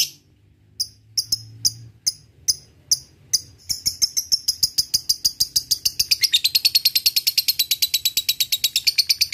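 Lovebird calling: a few spaced, sharp chirps (the 'ngetik' call) that break about a third of the way in into a long, rapid, even chatter of about seven notes a second (the 'ngekek' call).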